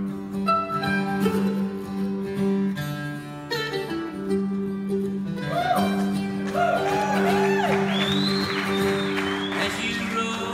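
Acoustic guitar and mandolin duo playing a bluegrass gospel tune, with steady guitar chords underneath. From about halfway through, a higher lead line comes in whose notes bend and slide in pitch.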